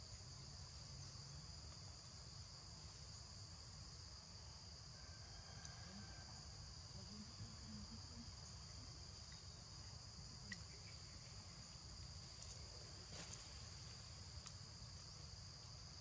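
Faint, steady, high-pitched insect chorus, with a few faint clicks in the second half.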